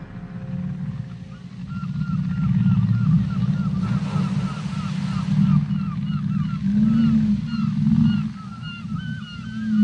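Whale calls heard through a hydrophone lowered from the boat: a fast run of short chirps, several a second, over a steady low hum.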